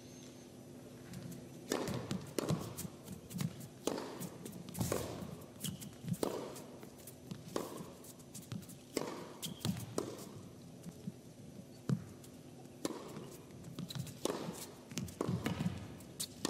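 Tennis rally on an indoor hard court: sharp pops of racket strikes and ball bounces trading back and forth about once a second, starting about two seconds in, with a short echo after each hit.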